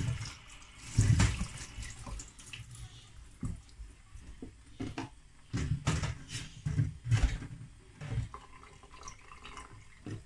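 Water sloshing and splashing in a kitchen sink as mackerel pieces are rinsed in a wire basket, in irregular splashes and knocks with short pauses between.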